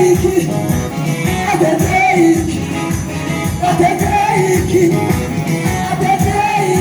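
Ethiopian gospel song (mezmur): a sung melody over a band with a steady drum beat and jingling, tambourine-like percussion.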